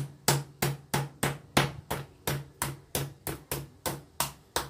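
Metal meat tenderizer mallet pounding a raw chicken breast on a cutting board, steady strikes about three a second, each a dull thud with a sharp knock. The breast is being tenderized and flattened so it cooks quickly and can be filled.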